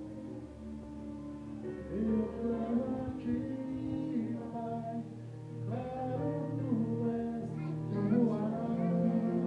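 Singing over instrumental accompaniment: a sung melody with held, gliding notes that grows louder about two seconds in.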